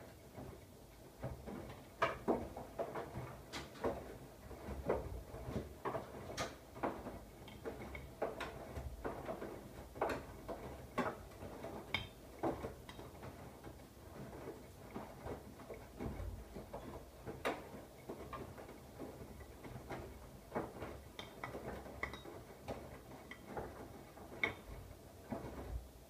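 Siemens iQ700 (WM16S793GB) front-loading washing machine drum turning during a wash: the wet load and water slosh and thud irregularly, about one or two knocks a second, over a low hum from the drive.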